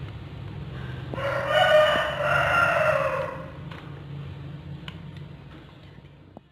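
A rooster crowing once, a pitched call of about two seconds that starts about a second in, over a low steady hum.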